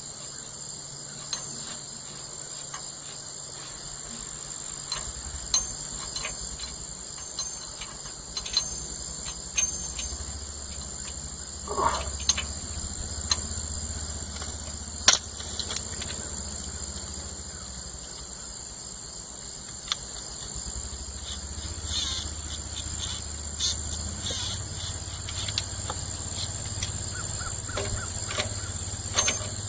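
Steady high-pitched chirring of crickets, with scattered light clicks and knocks throughout and a low steady rumble that comes in about four seconds in.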